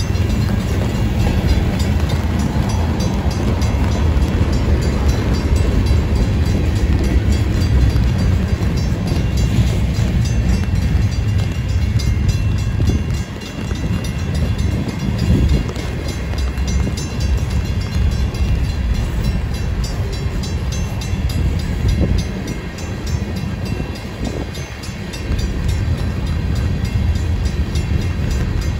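Freight train of tank cars and flatcars rolling past, a steady loud rumble of steel wheels on rail. The rumble dips briefly twice as the cars go by.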